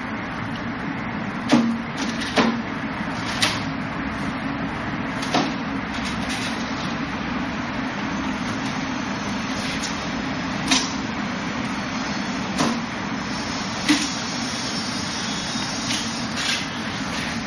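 Forearms and hands striking the wooden arms and trunk of a Wing Chun wooden dummy: sharp wooden knocks at irregular intervals, about nine in all, over a steady background hiss.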